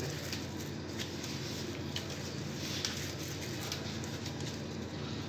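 Steady low hum of kitchen equipment, with a few light taps and rustles from a bamboo sushi mat being pressed around a roll.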